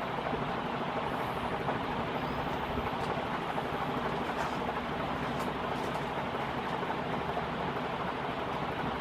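1986 Relite Airmaster Mark 7 commercial ceiling fan running steadily: an even rush of moving air with a faint low motor hum.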